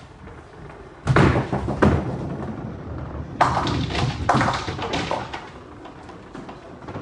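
Nine-pin bowling lanes in play: heavy balls thud onto the wooden lane, about a second in and again a little after three seconds, followed by rolling and a run of sharp clattering knocks.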